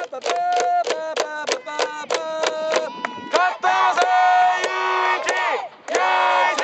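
A group of young baseball players chanting and shouting cheers in unison. The chant goes in quick, even syllables, then turns into longer, drawn-out rising and falling shouts, with a short break near the end.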